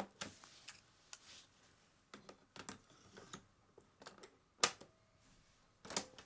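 Scattered light clicks and knocks from handling a Sharp radio-cassette recorder, with two louder sharp clicks, one about four and a half seconds in and another near the end.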